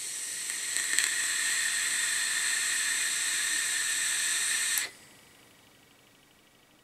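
Steady hiss of air being drawn through an Ijoy Goodger e-cigarette while it fires, lasting about five seconds and cutting off abruptly.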